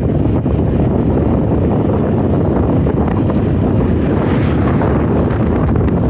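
Strong wind buffeting the phone's microphone: a loud, steady, low rumbling noise.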